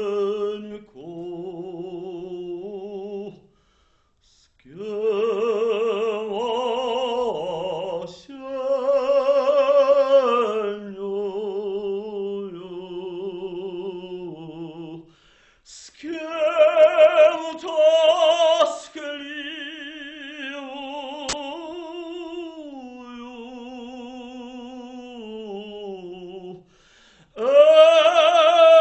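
Operatic solo voice singing in classical style, long held notes with wide vibrato in phrases, broken by a short pause about three and a half seconds in.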